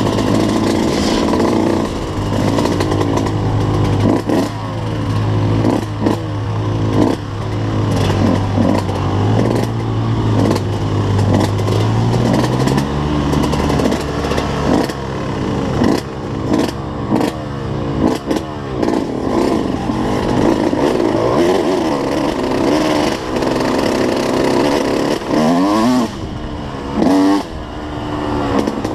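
Suzuki RM125 two-stroke dirt bike engine being ridden hard, its revs rising and falling over and over as the rider works the throttle and gears, with frequent short knocks and rattles from the bike over rough ground.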